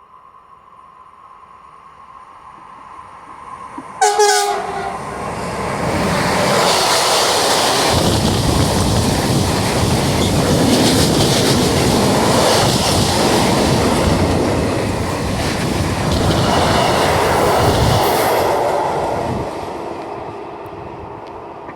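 A train sounds a short horn blast about four seconds in as it approaches, then passes close by with loud rumbling and wheel clatter on the rails, fading away near the end.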